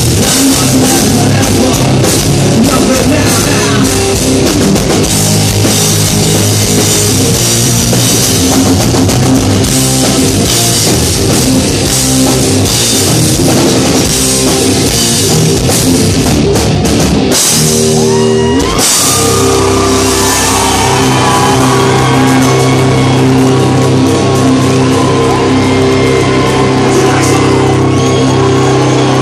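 Live rock band playing loud: distorted electric guitars, bass guitar and a drum kit with heavy cymbals. About two-thirds of the way in the playing breaks off for a moment, then held guitar notes ring on over lighter drumming.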